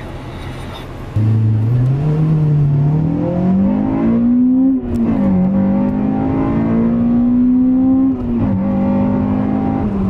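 Acura RSX Type-S 2.0-litre four-cylinder engine accelerating hard: after a quieter start it comes in loud about a second in, its pitch climbing and then dropping at gear changes about four and eight seconds in, and it holds a steadier note near the end.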